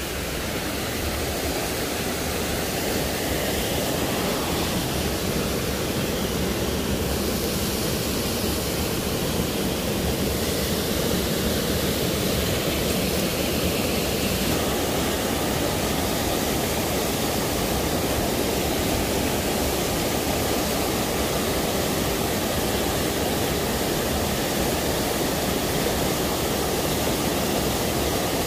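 A waterfall rushing steadily over rocks into a stream pool, a constant even noise of falling water.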